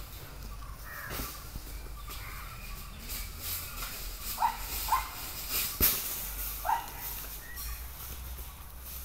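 Three short animal calls about halfway through, with light crackling like dry leaves underfoot and one sharp knock just before the second call's end.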